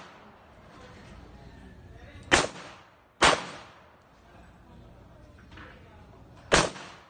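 Three handgun shots: two about a second apart, then a third some three seconds later, each trailing off in a short echo.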